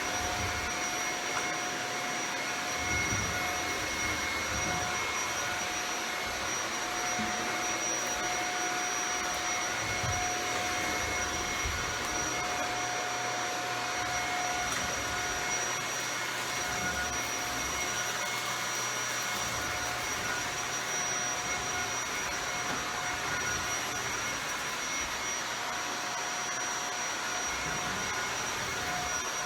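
Shark Powered Lift-Away Rotator Speed upright vacuum cleaner running steadily: an even rushing noise with a constant high whine from the motor.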